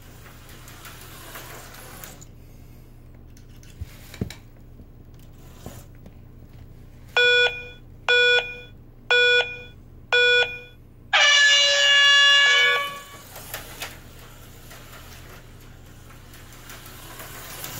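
Laptrax phone app's race-start countdown: four short beeps one second apart, then a longer tone with a different, richer pitch, which marks the start of the slot-car race.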